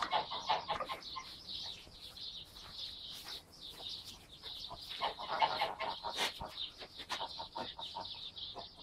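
Small birds chirping continuously. Over them come bursts of rapid clucking calls, one just after the start and a louder one around five seconds in.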